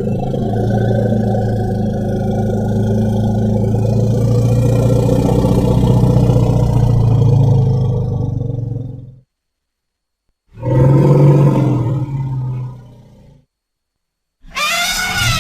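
Elephant calls. First comes a long, low, steady roar of about nine seconds. After a short gap there is a shorter low call of about three seconds, and near the end a brief high-pitched trumpet.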